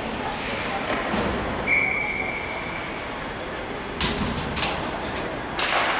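Ice rink din during a youth hockey game: a referee's whistle blows one steady note for just over a second, then a few sharp clacks of sticks and puck on the ice at the faceoff from about four seconds in.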